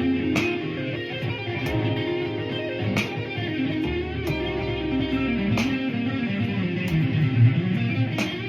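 Electric blues guitar playing a lead line with bent, sliding notes over a steady bass and a beat that hits about every 1.3 seconds.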